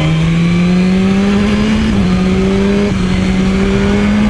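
Motorcycle engine pulling steadily under way, its note climbing slowly with two brief dips about two and three seconds in, over a steady rush of wind.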